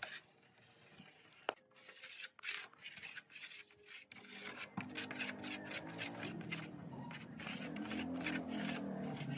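Wood glue being spread across a pine board with a flat scraper: quick rubbing, scraping strokes that start about four seconds in and grow louder. Before them come a few faint ticks and one sharp click.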